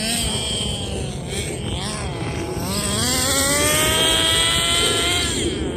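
Nitro RC car's small two-stroke glow-fuel engine running and revving as the car is driven. Its pitch dips about two seconds in, then climbs steadily for a few seconds before dropping near the end.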